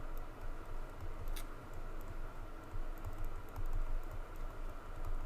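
Faint, irregular clicking and tapping like keyboard keys, over a low rumble.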